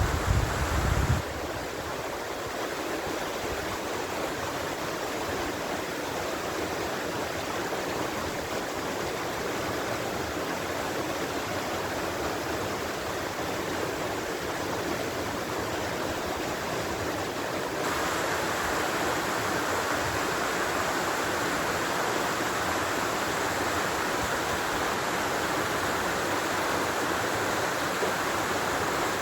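Natural running water: the steady rush of a stream, with wind rumbling on the microphone for the first second. About 18 seconds in it changes abruptly to a louder, brighter rush of water.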